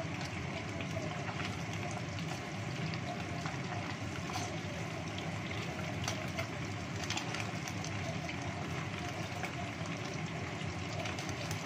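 Chicken wings deep-frying in a pot of hot oil: a steady sizzle with scattered pops and crackles.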